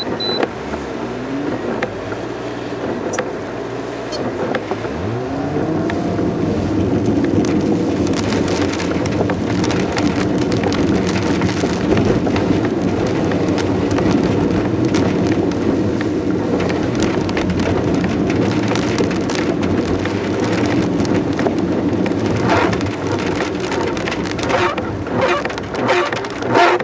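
Car engine heard from inside the cabin, its pitch rising as it pulls away about five seconds in, then running steadily as the car drives on, with rain pattering on the car. Near the end the engine note rises and falls several times.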